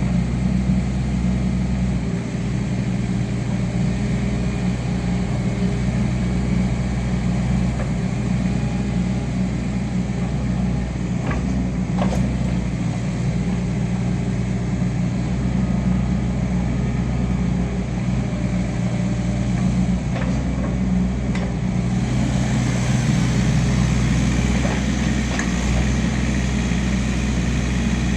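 Diesel engine of a Wacker Neuson EZ28 mini excavator running steadily, with a few faint clicks and knocks. About three-quarters of the way through, a brighter hiss joins in.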